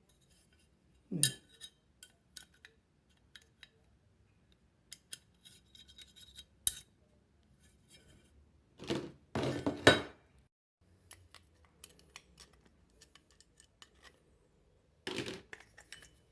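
Small metal tool clicking and scraping against a fan motor's front end housing as dirt is cleaned out of the bushing seat. Scattered light clicks, with a few louder scrapes, the longest about nine seconds in.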